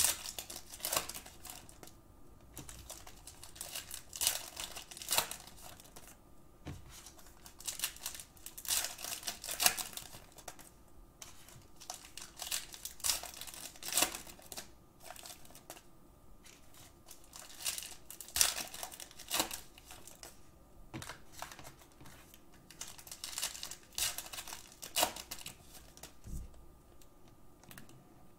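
Foil trading-card packs crinkling as they are torn open and handled, with cards sliding and tapping as they are stacked on the table. The crackling comes in irregular bursts with short pauses between.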